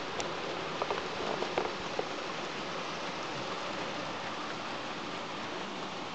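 Model freight train running along the layout's track: a steady rushing rattle of small wheels and motor, with a few light clicks in the first two seconds.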